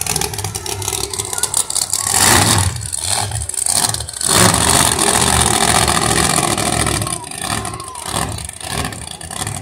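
Monster truck engine running and revving as the truck drives across the dirt arena, swelling louder about two seconds in and again from about four and a half seconds.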